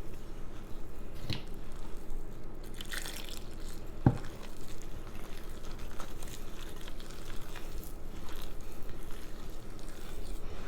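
Soft wet dripping and squishing of hands working in water and wet teff dough, over a faint steady hum, with one sharp click about four seconds in.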